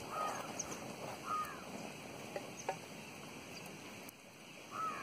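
Outdoor ambience with a bird calling about three times, short arched calls, over a steady background hiss, with a couple of faint clicks midway.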